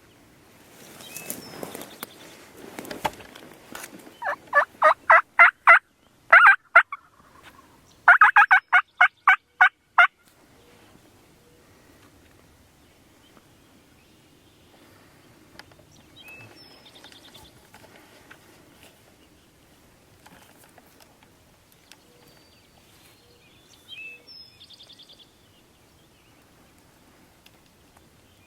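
Wild turkey yelping: three runs of evenly spaced, loud yelps at about four a second, with the longest run of about nine notes near the middle.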